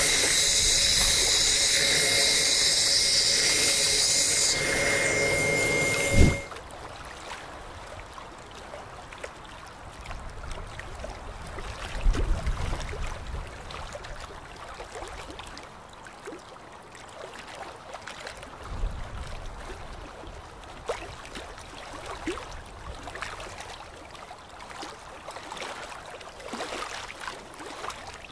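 Dental equipment gives a loud, steady hiss with faint steady tones in it, which cuts off with a click about six seconds in. After that the sound is much quieter: scattered small clicks and handling noises, with a couple of low thumps, while material is applied along the gums.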